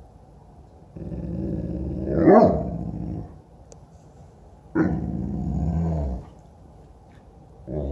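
Dogs growling in play: two long, low growls, the first rising to a louder, higher-pitched peak midway through, and a third starting near the end.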